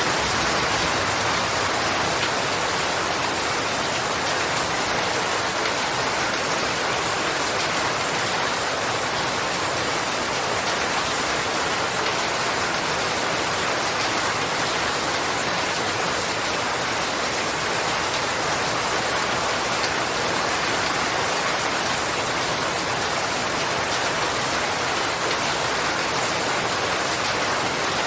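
Steady heavy rainfall, an even hiss of rain pouring down and hitting surfaces without letting up.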